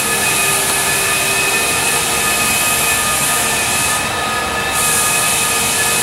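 Floor sanding machine running with a loud, steady whine over a broad hiss; the high hiss dips briefly about four seconds in.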